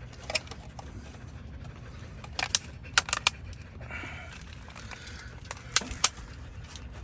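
A few short, sharp clicks and knocks of spilled seedling pots being picked up and set back on a shelf, three in quick succession near the middle. Under them is a steady low rumble of wind on the microphone.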